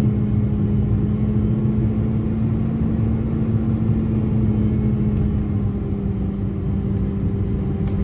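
Truck engine running steadily while driving, heard from inside the cab: a constant hum over low road rumble.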